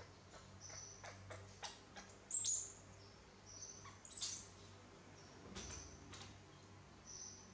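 Newborn baby monkey giving thin, high-pitched squeaks, the two loudest about two and four seconds in, with a few soft clicks between them.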